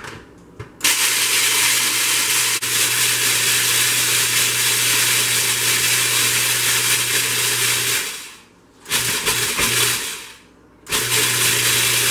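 Countertop food processor running, grinding pretzels into crumbs: it starts about a second in, runs steadily for about seven seconds, then is pulsed twice more in short bursts.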